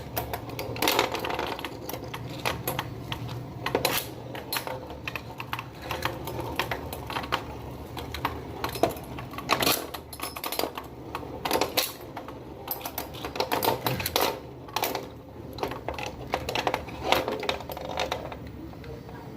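Irregular clicking and clattering of small hard objects, several knocks a second with louder ones now and then.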